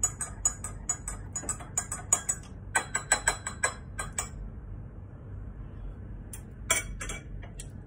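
Metal spoon clinking against a drinking glass while stirring a drink, about four quick clinks a second, stopping about four seconds in. A few separate, sharper clinks follow near the end.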